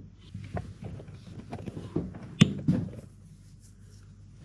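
A run of irregular knocks and clicks, close by in a small room, the loudest about two and a half seconds in, then quieter.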